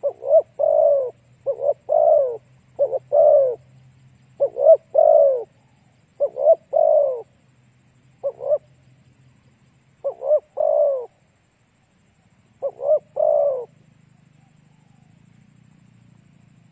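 Spotted dove cooing: about eight phrases, each a short note or two followed by a longer note that falls in pitch, repeated every second or so with a longer pause after the sixth phrase.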